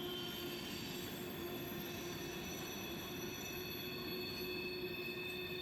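Freight train wheels squealing: a steady, high-pitched squeal with several held tones over a rumble of rolling cars. The bearings are shot, to the anglers' ears.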